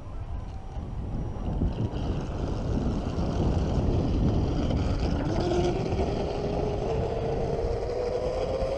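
Traxxas M41 Widebody RC boat's brushless electric motor running out on the water, its whine climbing steadily in pitch over the second half as the boat speeds up. Wind rumbles on the microphone underneath.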